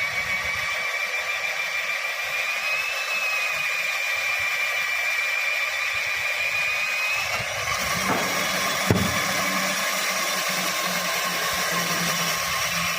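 Electric power tool running continuously with a steady high whine. About seven and a half seconds in, the whine shifts and the sound grows rougher, with a sharp knock a second or so later.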